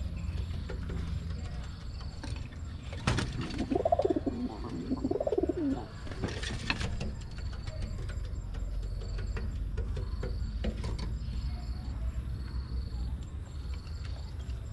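Domestic pigeon cooing: two rising-and-falling coos about four seconds in, with a couple of sharp knocks around them over a steady low rumble.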